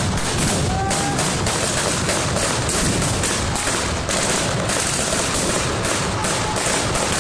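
Battle re-enactment gunfire: rifles and submachine guns firing blanks in rapid, irregular shots, several a second and often overlapping, with no pause.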